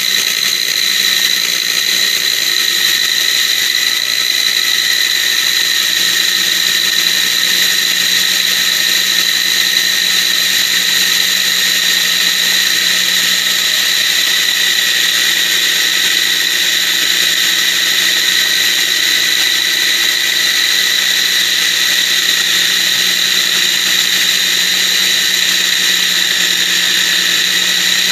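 Electric food processor motor running with an even, unchanging whine while vegetable oil is drizzled in through the lid, blending garlic, salt and lemon juice into an emulsified garlic sauce.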